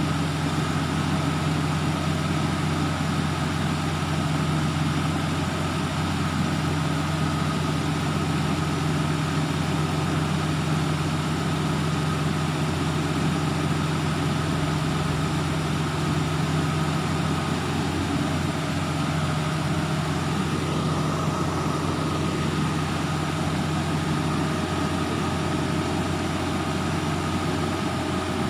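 Engine of a truck-mounted boom lift running steadily at idle, powering the lift's hydraulics while the basket is raised. One low steady tone drops out about 24 seconds in.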